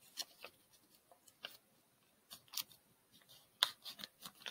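Sheet of origami paper being folded and pressed by hand into a fish-base fold: faint, scattered crisp paper crackles and taps, the loudest about three and a half seconds in.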